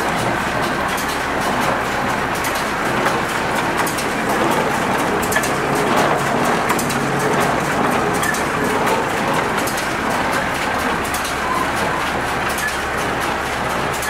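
International 445 conventional baler running off a tractor's power take-off: a steady mechanical clatter and rattle over the low, steady hum of the tractor engine.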